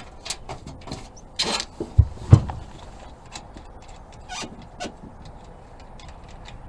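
Scattered clicks and light knocks of a wrench and nuts being worked at car-battery terminals, with a short scrape and then two dull thumps about two seconds in.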